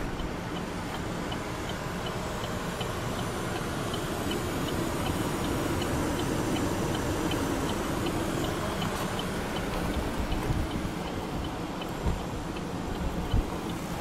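Light, even ticking, about two ticks a second, that stops a few seconds before the end. Under it is a steady low rumble of handling and wind noise, with a couple of soft thumps near the end.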